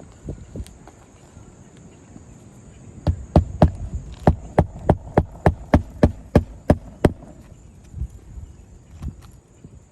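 Hammer driving roofing nails to fasten a replacement asphalt shingle: about a dozen sharp, even strikes at about three a second, with a few lighter knocks before and after.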